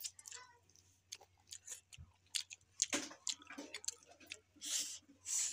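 Close-up eating sounds from a meal of grilled fish and rice eaten by hand: irregular soft clicks and smacks of chewing and of fingers working the food, with two short hissing sounds near the end.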